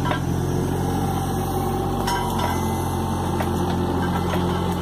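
Diesel engine of a John Deere 17D mini excavator running steadily while the machine carries a bucket of wet concrete, its hydraulics working the boom and swing. A faint higher whine joins in about two seconds in.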